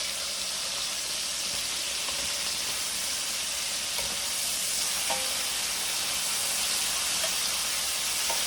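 Tri-tip steaks sizzling steadily as they sear in a hot stainless steel pan, with a few light clicks as the steaks are turned partway through cooking.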